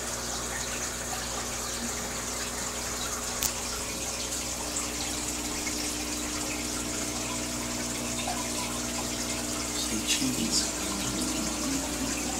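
Aquarium filter and air bubbler running: a steady bubbling, trickling water sound with a low steady hum underneath.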